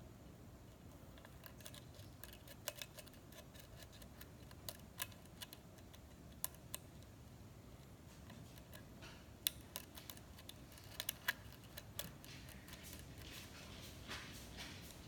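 Faint, irregular metallic clicks of a hook pick and tension wrench working the pins inside a Schlage-type pin-tumbler lock cylinder, with a cluster of louder clicks past the middle.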